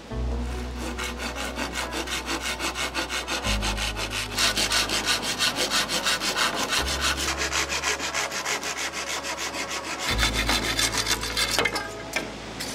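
Wood being sawn by hand with quick, regular back-and-forth strokes, about four or five a second, stopping a little before the end.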